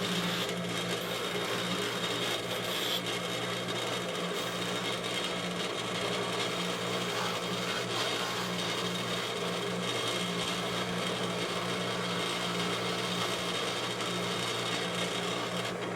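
Electric bench buffer running steadily with a low hum while a metal divot tool is held against its buffing wheel for polishing.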